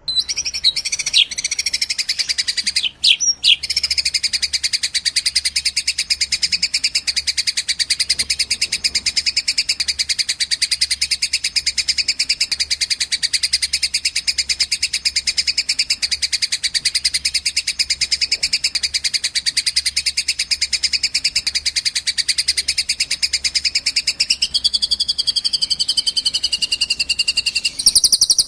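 Recorded songbird calls played as a masteran training track: a fast, unbroken chatter of high notes. It breaks off briefly about three seconds in and dips lower in pitch near the end.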